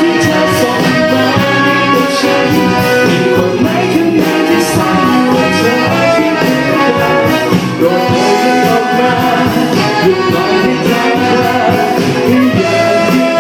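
Band music with brass playing over a steady drum beat.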